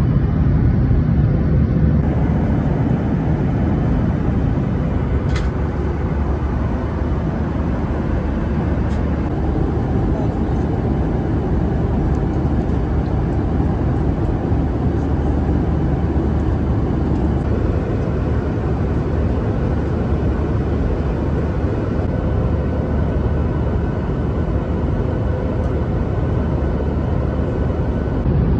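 Steady in-flight cabin noise of a Boeing 737-800: an even, low rumble of engines and airflow, with a faint click about five seconds in and another around nine.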